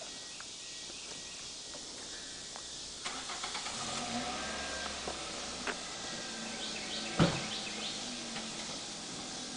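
A car engine starting about three seconds in and running on as the car moves off. There is a single sharp thump a few seconds later.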